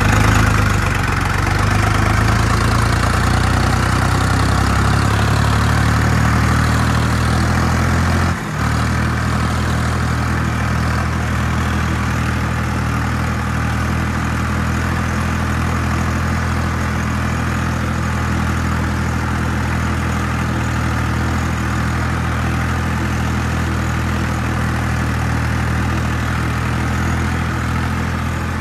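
Ford 3600 tractor's three-cylinder engine running steadily while working a tilled field. There is a brief drop in the sound about eight seconds in, then the engine note goes on steady.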